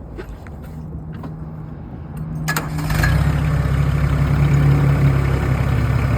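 A tractor's engine starts after a few faint clicks, about two and a half seconds in, then runs steadily at idle, much louder.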